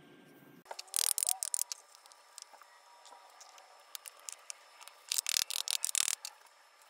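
Small metal-headed hammer tapping the wedges of a wooden waterstone holder, setting the sharpening stone fast. It gives two quick runs of light, sharp knocks, one about a second in and one about five seconds in.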